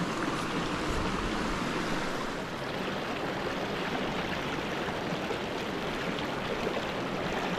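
Small trout stream running over rocks in a riffle: a steady rush of water.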